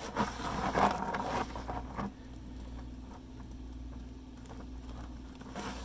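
Red plastic bucket of mixed stucco patch being handled and moved, with a few light knocks and rustles in the first second and a half, then only a faint steady hum.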